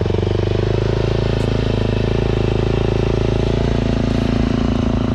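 Dirt bike engine idling steadily, a fast, even pulse from its firing strokes.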